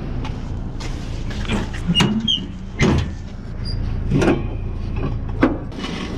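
Several sharp knocks and clunks as a 100-pound steel propane cylinder and its ratchet strap are handled in a pickup truck bed, over a steady low rumble.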